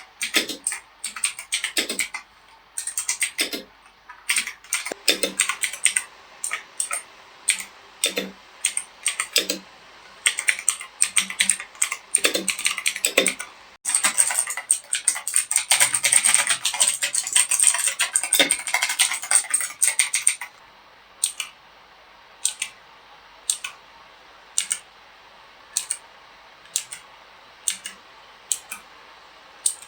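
H61K mechanical keyboard with blue switches being typed on: sharp clicky keystrokes in short bursts, then a dense run of fast typing in the middle, then single key presses at a slow, even pace. The switches are loud enough to bother people nearby.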